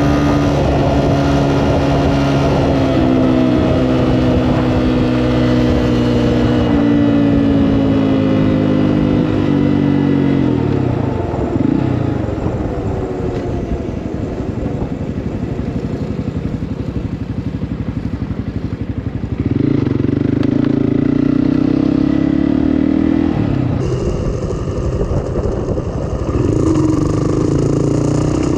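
Honda CRF250F's single-cylinder four-stroke engine under way. It holds steady revs, then eases off with the pitch sliding slowly down over about ten seconds, runs low for several seconds, and is opened up twice more in the second half, each time with a rise in pitch.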